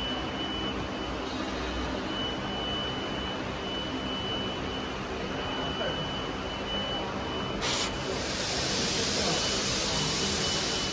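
Steady workshop machinery hum with a thin, steady high whine. About two-thirds of the way in, a hiss starts suddenly.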